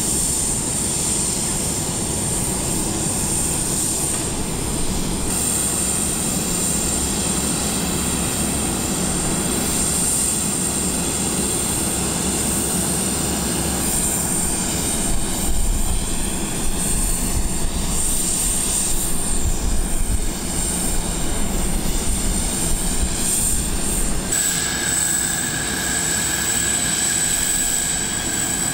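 Steady machinery noise around a parked cargo jet on an airport apron: a constant high-pitched whine over a low rumble. The rumble surges for a few seconds past the middle, and a second, lower whine starts about three quarters of the way through.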